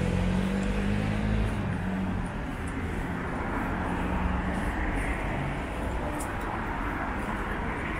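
City traffic noise: a motor vehicle's low engine hum that fades over the first two seconds, then a steady background rush of traffic.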